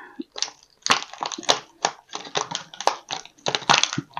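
Cardboard and plastic toy packaging being pulled and torn open by hand: an irregular run of crackling and rustling, with a soft thump near the end.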